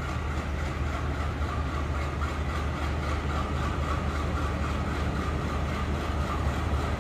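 Diesel-electric locomotive of the WDM-3A type (ALCO-design, DLW-built) idling steadily, a deep, even engine hum with no change in pitch.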